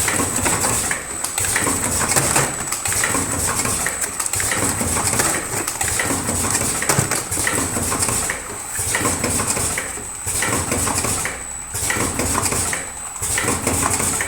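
Vertical automatic cartoning machine running: continuous mechanical clatter and clicking over a steady high whine, with brief lulls every second or two.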